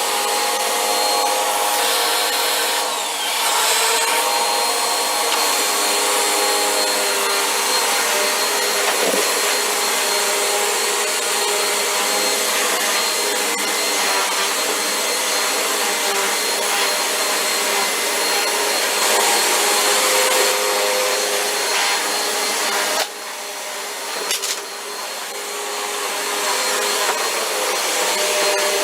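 Vacuum cleaner running steadily with a constant motor whine. It drops suddenly in level about 23 seconds in and builds back up over the next few seconds.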